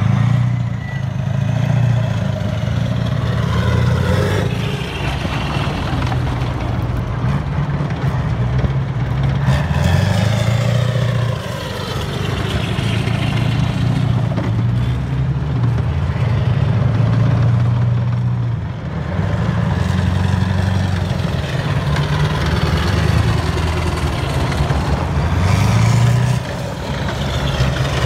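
A convoy of Warrior tracked infantry fighting vehicles driving past one after another, their Perkins V8 diesel engines and steel tracks running loud and low. The sound swells as each vehicle goes by and eases briefly between them.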